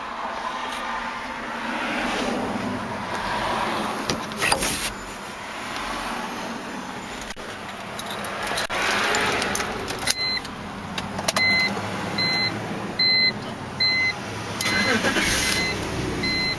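Cabin sound inside a 2003 BMW 325i: a steady engine and road hum with a few knocks. From about ten seconds in comes a run of short, evenly spaced electronic beeps, a little more than one a second.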